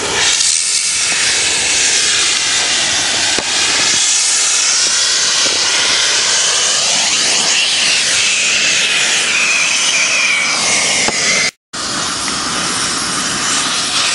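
Steady, loud hiss of a hand cutting torch's gas jet while cutting steel plate, with a faint wavering whistle in it.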